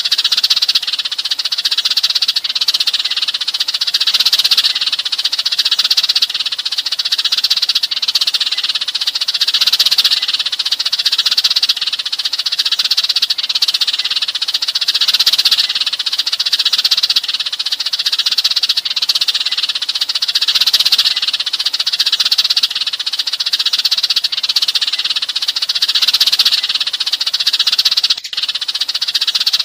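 A flock of Eurasian tree sparrows chattering and chirping without pause, a dense flock-call recording used to lure sparrows. Near the end there is a brief click and dip in the sound.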